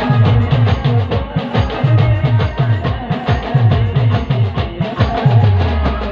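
Band music with keyboard over a fast, steady drum beat, the low drum strokes coming about four a second; near the end a low note is held for about a second. No singing.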